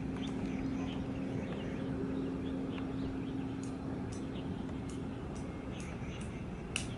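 Outdoor harbour-side ambience: a steady low hum over a dull rumble, with short high bird chirps scattered through and one sharper chirp near the end.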